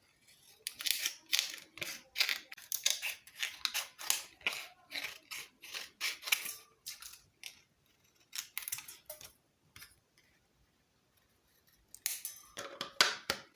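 Scissors snipping through thin plastic bottle, a run of crisp cuts a few per second, then a pause of a couple of seconds and a few more snips near the end.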